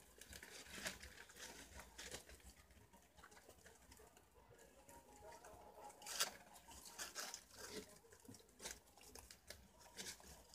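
Faint rustling and crunching from a group of wild cavies (preás) feeding on leaves and vegetable scraps: many small scattered clicks, with one sharper crack about six seconds in.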